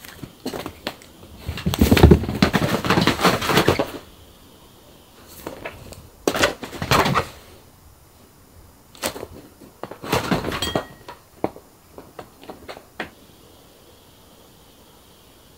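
A cat tearing around in play: bursts of paws scrabbling and thumping on the floor and sofa, loudest about two to four seconds in, then shorter bursts and a few light taps.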